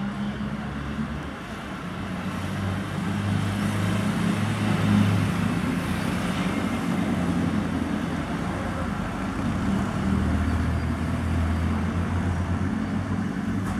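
Road traffic: motor vehicle engines running on the street, a steady low hum that grows louder about four seconds in as a vehicle comes closer.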